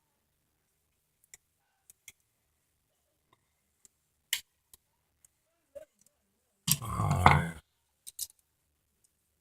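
Scattered faint clicks and taps from handling small hardware at a wall switch box, then a louder burst of noise lasting about a second, roughly seven seconds in.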